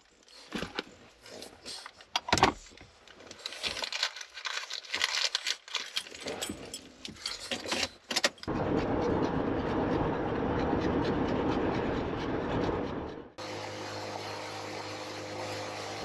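Keys jangling and rustling with scattered clicks inside a car as the driver settles in, then a steady rushing noise for about five seconds. After a sudden cut, a fuel pump hums steadily as diesel runs through the nozzle into the car's filler.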